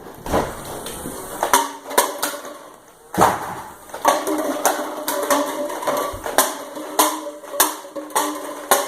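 Nerf Evader blaster firing foam darts again and again, about a dozen sharp snaps at uneven gaps, as it shoots down the remaining plastic cups of a pyramid. Short ringing follows some of the snaps.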